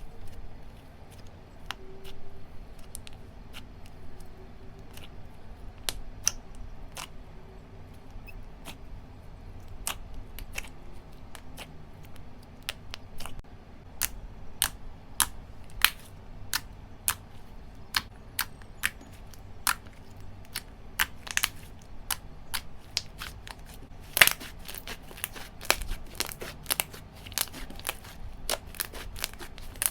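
Slime being squeezed and played with by hand, giving a run of sharp pops and clicks. The clicks are sparse at first and come faster and louder in the second half.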